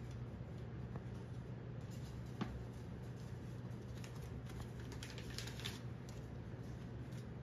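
Scattered light clicks and taps, growing into a quick run of them about four to six seconds in, over a steady low hum.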